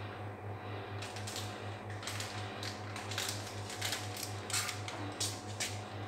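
A plastic wet-wipes packet crinkles and clicks in irregular crackling bursts as latex-gloved hands handle it, busiest in the second half. A low pulsing hum runs steadily underneath.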